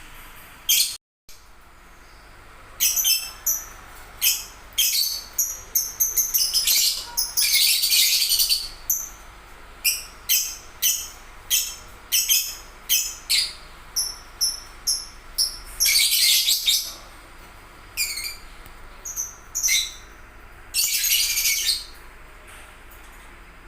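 Songbird chirping and singing: many short, high chirps in quick runs, broken by a few longer bursts of song, the longest about 8, 16 and 21 seconds in.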